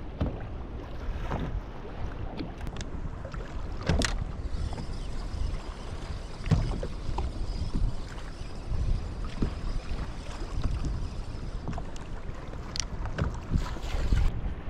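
Wind noise on the microphone aboard a fishing kayak, with water lapping at the hull and a few sharp knocks, the loudest about four seconds in.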